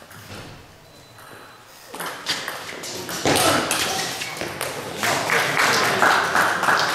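Table tennis ball clicking off bats and table in a rally, starting about two seconds in, with people's voices rising over it in the second half.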